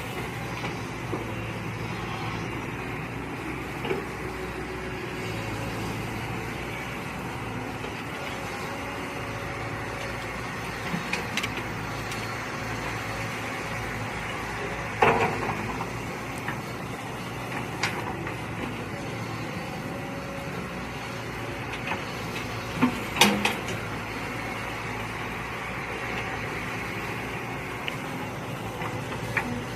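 Mini excavator engine running steadily while digging, with scattered short clanks and knocks from the bucket and arm work. The loudest knocks come about halfway through and about two-thirds through.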